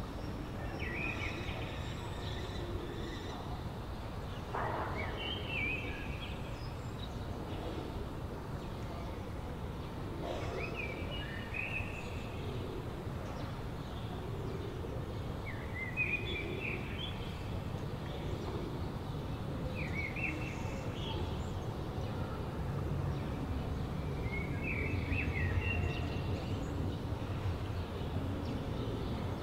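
Urban waterside ambience: a steady low hum of distant city traffic, with a songbird singing short chirping phrases every four to five seconds.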